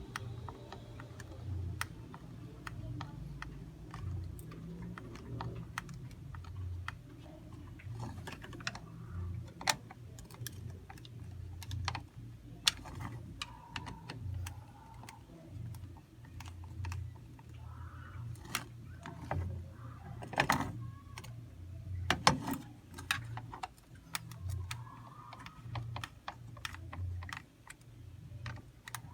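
Irregular small clicks and taps as screws are driven back into a cordless screwdriver's plastic battery-pack casing and the case is handled, with a few louder knocks about two-thirds of the way through. A low hum swells and fades every second or so underneath.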